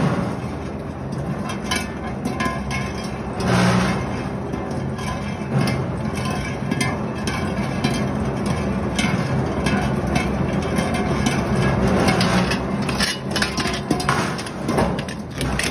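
Twin-shaft industrial shredder running with a steady motor drone, its hooked rotor teeth knocking and grinding against a steel gas cylinder in repeated metallic clanks and bangs.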